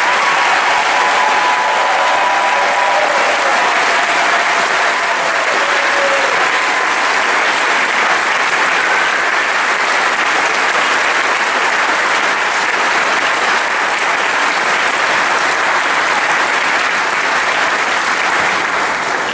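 A large audience applauding steadily in a long round of clapping that dies away at the end.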